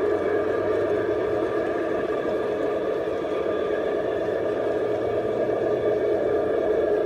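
Garden-railway model freight cars rolling past on outdoor track: a steady rolling rumble of metal wheels on the rails, with a faint steady whine above it.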